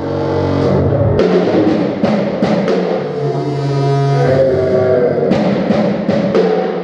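Music: sharp percussion hits over sustained low bass notes.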